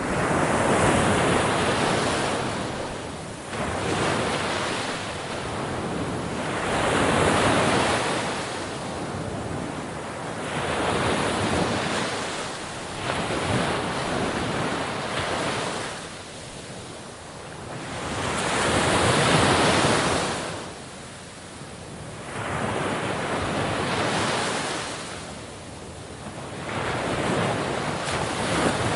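Sea waves breaking on a shore, surf rushing up and washing back in repeated swells a few seconds apart, with wind on the microphone.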